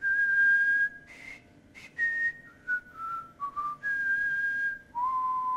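A man whistling a short tune of held notes. The notes step up and down in pitch and end on the lowest note near the end.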